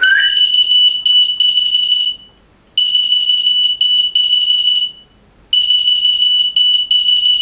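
A brief rising human whistle sets off a whistle-activated key finder keychain, which answers with three long high-pitched electronic beeps of about two seconds each, separated by short gaps.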